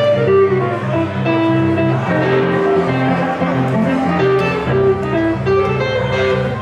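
Live blues band playing an instrumental passage: hollow-body archtop electric guitar and stage keyboard, with held melody notes over a steady moving bass line.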